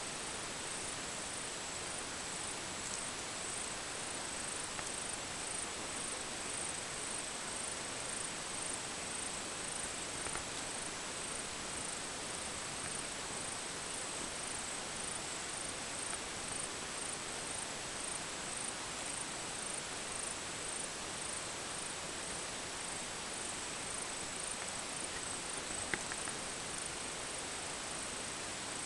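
Steady outdoor hiss with a thin, high-pitched chirp repeating evenly about twice a second, typical of an insect calling, and a few faint ticks.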